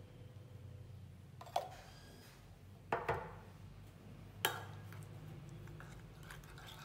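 A spoon knocking against a pot: a sharp clink about one and a half seconds in, a quick double clink around three seconds, and another near four and a half seconds, over a faint low hum.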